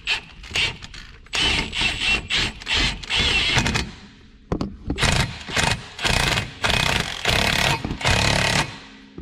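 Impact wrench running in bursts, one of about two seconds and then a run of short ones, driving a puller bolt into the bread-packed bore of a Can-Am Maverick X3 primary clutch to force the clutch off its crankshaft taper.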